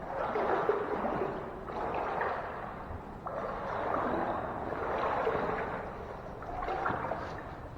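Footsteps wading through standing water: a splashing slosh with each stride, about five strides in a steady rhythm.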